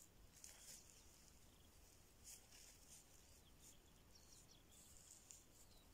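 Near silence: faint outdoor ambience with a few brief, faint high-pitched sounds.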